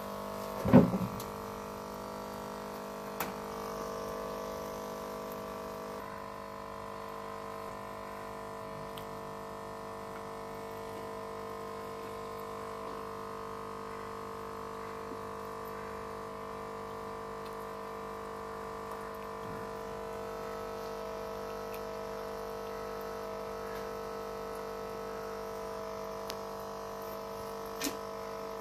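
A steady electric hum in several held tones. There is a sharp knock about a second in, and faint clicks at about three seconds and near the end.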